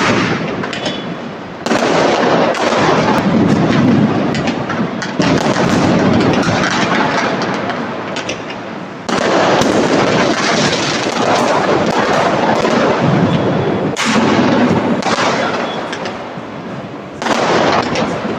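Diwali fireworks going off overhead: a loud burst every few seconds, five in all, each followed by dense crackling and popping that slowly dies away before the next.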